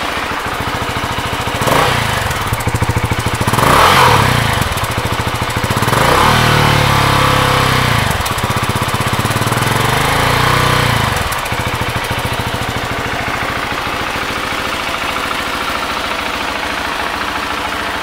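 A KTM 690 SMC R's single-cylinder engine is revved several times with throttle pulls, one rev held for a couple of seconds. It then drops back to a steady idle for the last third or so.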